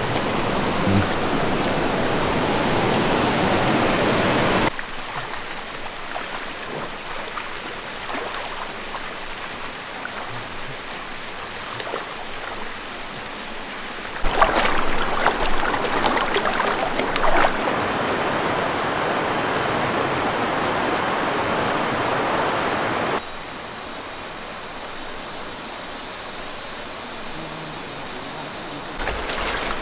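Shallow rainforest river running over rocks, a steady rush of water that shifts abruptly several times in level and tone. Between about 14 and 17 seconds in come a few sharp splashes of someone wading through the water. A steady high-pitched whine runs over it.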